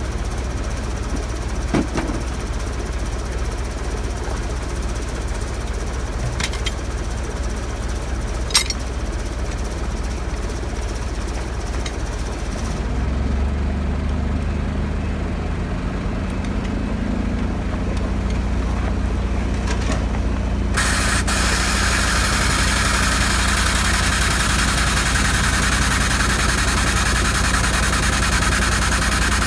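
An engine idling steadily, with a few sharp metallic clicks in the first third. About two-thirds of the way in, a loud, steady hiss starts over it.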